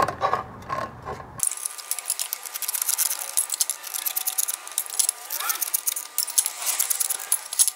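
Hand tin snips cutting along traced lines on the sheet-steel blades of a car's engine cooling fan: a fast, irregular run of crisp metallic snips and clinks.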